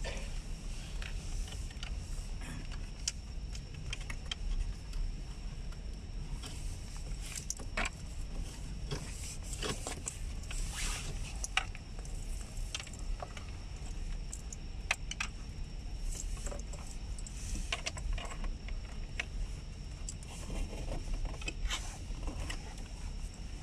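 Rustling, scraping and light clicking of wiring cables being pulled and fed behind plastic dashboard trim, in irregular spells. Under it runs a steady low hum and a faint high whine.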